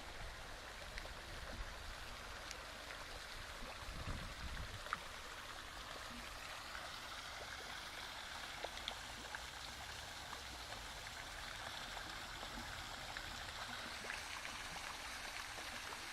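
Steady rush of running water, with scattered faint drips and splashes.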